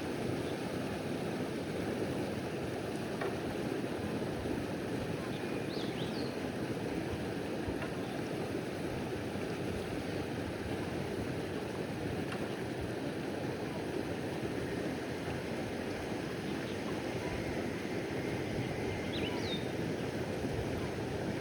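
Steady rush of water along a moving bamboo raft, with two brief high chirps.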